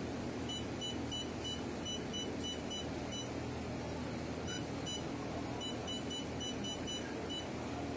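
Laser welder's touchscreen beeping at each key press as a password is typed on its on-screen keypad: short high beeps in quick runs, with a pause in the middle. A steady low hum runs underneath.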